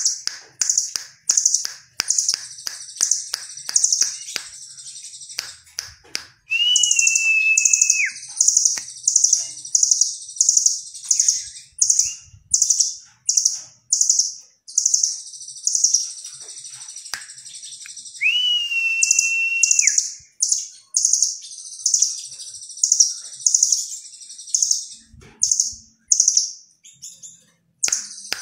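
A caged blue nuthatch (rambatan Doraemon) calling: trains of sharp, high, repeated notes about two a second, broken twice by a long steady whistle of about a second and a half that slurs down at its end. Quick clicks fill the first few seconds.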